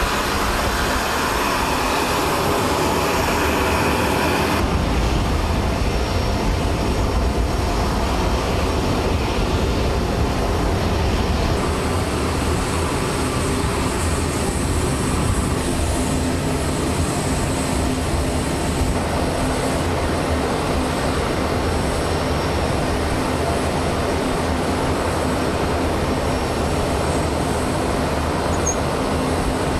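Helicopter turbine and rotor noise, loud and steady, changing character abruptly about five and twelve seconds in, with a thin high whine in the later part.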